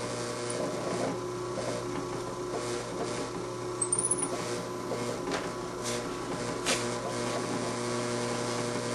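Drill press running with a steady hum as the bit is fed slowly through an oak gear disc to drill a rung hole, with a few sharp clicks a little past the middle.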